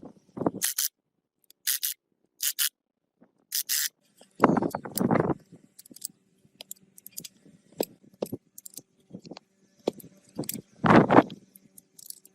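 Intermittent workshop handling noises: short scrapes and clicks, a few brief hissy bursts near the start, and two louder, fuller scrapes, one about four and a half seconds in and one about eleven seconds in.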